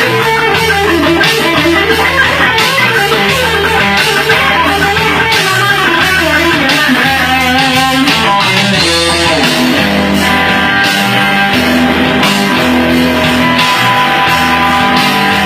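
Guitar solo over a backing track with bass and a steady drum beat: quick melodic runs climbing and falling, then longer held notes from about ten seconds in.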